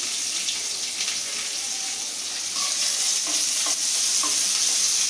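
Freshly added chopped onions sizzling in hot oil in a kadai, a steady frying hiss. From about halfway through come a few short knocks and scrapes as they are stirred around the pan.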